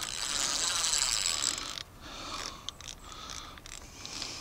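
Spinning reel being cranked fast to wind in line on a hooked trout: a whirring, ticking run for nearly two seconds that stops abruptly, then quieter winding with a few light clicks.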